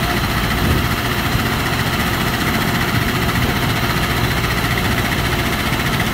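A heavy engine running steadily at idle, with an even noise throughout that does not change.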